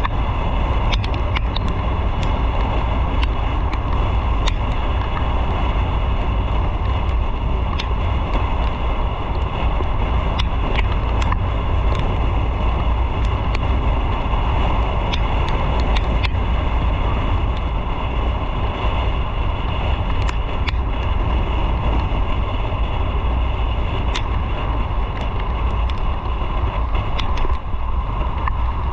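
Motorcycle riding at a steady speed: the engine running under a heavy rush of wind on the microphone, with road noise and scattered light ticks.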